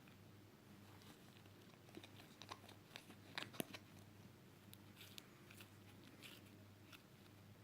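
Pink slime being squeezed and pressed by hand, giving faint scattered crackling clicks in two clusters, the sharpest about three and a half seconds in, over a low steady hum.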